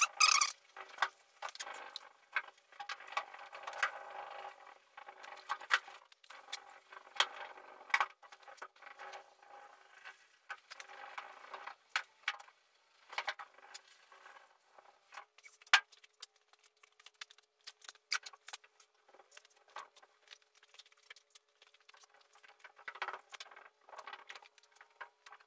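Hand wet sanding of painted truck sheet metal with 800-grit paper: irregular rubbing strokes with scattered clicks and taps, busiest in the first half and sparser later.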